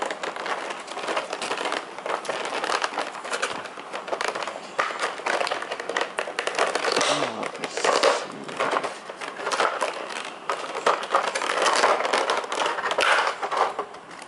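Thin clear plastic packaging, a blister tray and its wrapping, crinkling and crackling as it is handled, in a dense irregular run of crackles.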